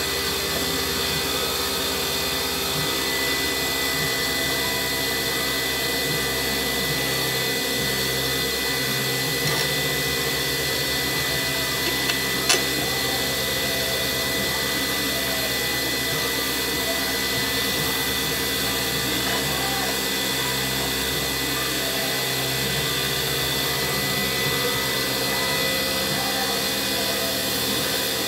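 Small wood lathe running steadily with a high whine as a turning tool cuts a resin pen blank, peeling off long stringy shavings. One sharp click about twelve seconds in.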